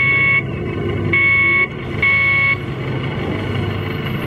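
Three short, high electronic beeps, each about half a second and about a second apart, over the steady low rumble of a miniature 300-series Shinkansen ride train running on its track.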